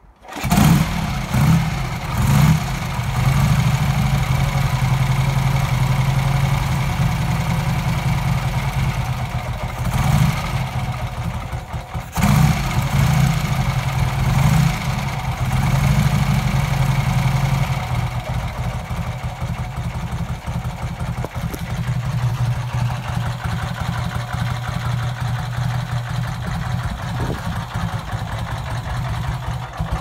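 Vincent Black Shadow's 998 cc V-twin motorcycle engine starting up about half a second in. It is blipped with several throttle revs in the first few seconds and again around the middle, then settles to a steady idle.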